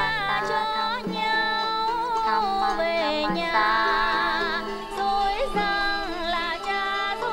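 Music: a solo voice sings a slow, ornamented melody with wide vibrato over a steady low note.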